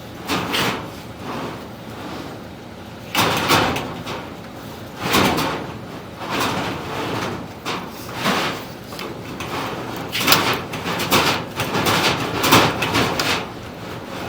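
Irregular scraping and knocking bursts, each lasting up to about a second: a duct inspection camera and its cable being fed and dragged through sheet-metal ductwork.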